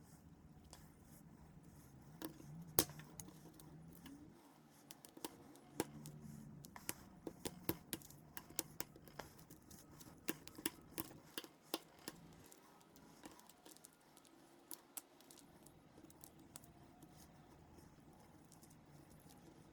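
Small glued wooden model-railroad ties of basswood and balsa cracking and snapping as a turntable deck is broken apart by hand: scattered sharp clicks and snaps, one louder crack about three seconds in and a quick run of them through the middle.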